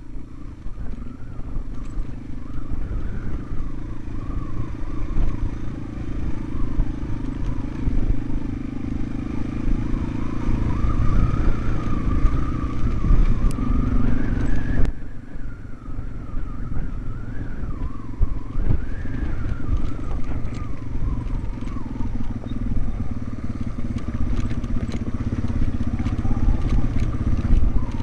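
Yamaha TW200's single-cylinder four-stroke engine running as the motorcycle rides a rough dirt trail, its pitch rising and falling with the throttle over a heavy low rumble. The sound changes abruptly about halfway through.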